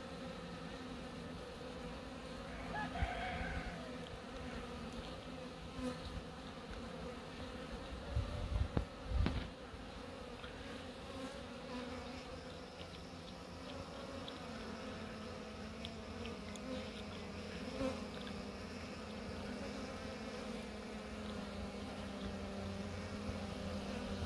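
Buckfast honeybees buzzing steadily as they fly in and out around the entrances of small mating hives. A couple of low thumps come about eight and nine seconds in.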